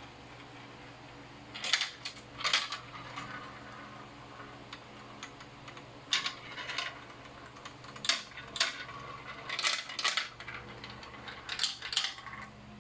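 Marbles clattering through a marble run track: sharp clicks come in five short clusters a couple of seconds apart, each of two or three quick knocks.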